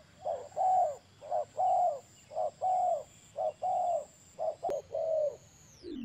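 Spotted dove cooing: five two-note phrases, each a short coo followed by a longer one, about one phrase a second.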